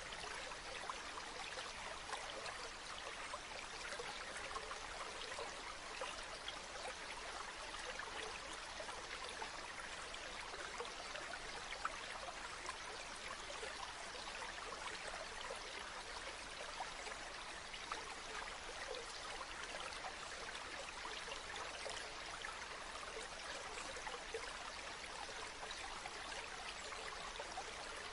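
Running water of a stream: a steady, even rush with small flecks of splashing all through.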